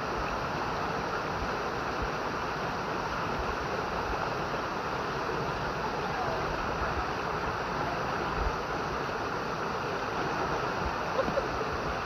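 A small waterfall pouring into a rock pool, a steady rush of water.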